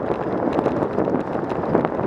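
Wind rushing over the microphone of a moving bicycle, over the steady noise of tyres rolling on asphalt, with frequent small rattling clicks from the bike.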